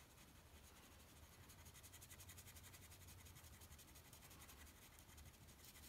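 Faint scratching of a wax crayon rubbed back and forth on paper in quick, even strokes.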